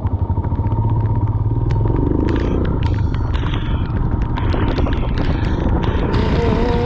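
Royal Enfield Himalayan motorcycle's single-cylinder engine running as the bike is ridden up the road, its note rising about two seconds in. Wind noise on the microphone grows near the end.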